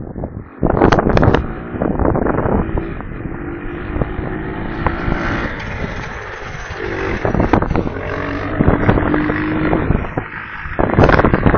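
Strong gusty wind buffeting the nest camera's microphone, with sharp knocks and rattles through the gusts; the loudest gusts come about a second in and near the end.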